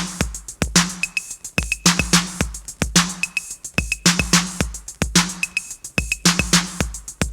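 Early-1980s hip-hop/funk drum-machine beat playing on its own: a kick drum, snappy snare or clap hits and hi-hats, with short high blips, in a pattern that repeats about every two seconds.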